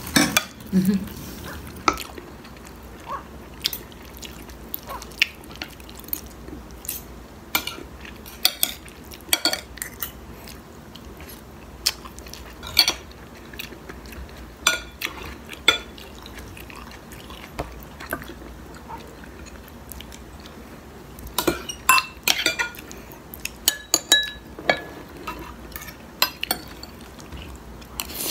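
Spoon and fork clinking and scraping against a plate in scattered sharp clicks, coming thicker about three quarters of the way through.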